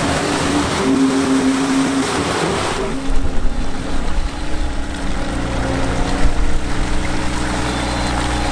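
ATAC-V Patrol's diesel engine working under load with a steady whine as its tires churn through soupy swamp mud, the tires short of grip. About three seconds in it drops to a low, steady idle rumble once the vehicle stops, bogged down.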